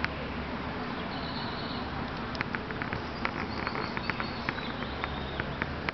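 Outdoor summer ambience with a steady low hum and insect-like buzzing. A run of small clicks and rustles close to the microphone starts about two seconds in, as the dogs move right beside it.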